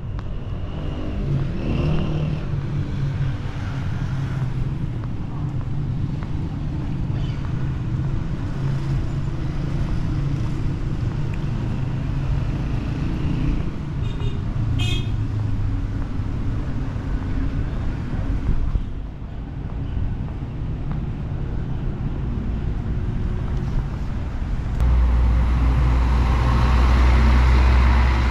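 Street traffic: a steady hum of car engines and tyres on a nearby road, with a brief high ringing sound about halfway through and a louder vehicle passing close near the end.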